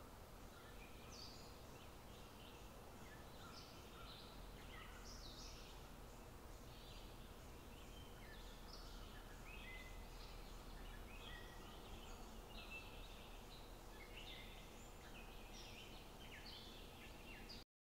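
Many small songbirds chirping and singing together, with short, overlapping calls, faint over a low background hiss; it cuts off suddenly near the end.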